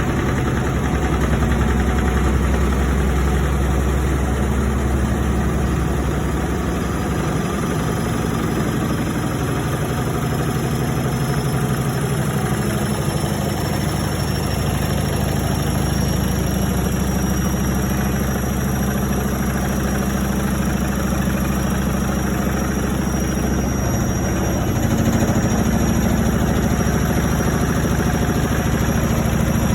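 IFB Senorita WXS washing machine running with a loud, steady low drone and vibration, a faint high whine slowly rising in pitch. The hum shifts in pitch partway through and again near the end.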